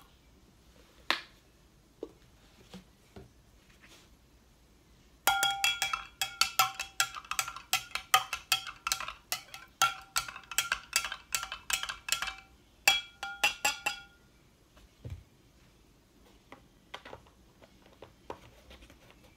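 A spoon stirring a drink in a tall drinking glass, clinking rapidly against the glass with a bright ringing tone. It starts about five seconds in and runs about seven seconds, then a short second burst of stirring follows. A few faint knocks come before and after.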